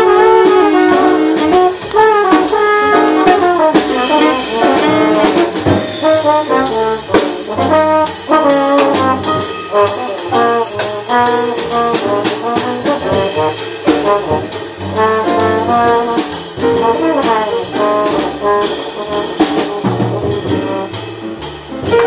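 Small jazz band playing live: trombone and saxophone carrying the melody over upright bass, piano and drums with cymbals ticking steadily.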